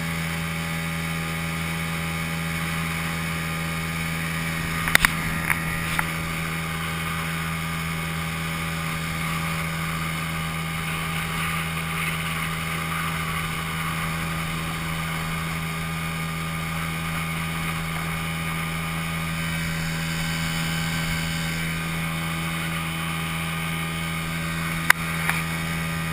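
Sears Gamefisher 7.5 hp outboard motor running at a steady speed on an aluminium jon boat, with a few sharp knocks about five seconds in and again near the end.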